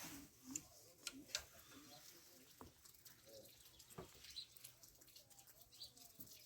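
Near silence, with a few faint scattered clicks and ticks, the sharpest a little over a second in.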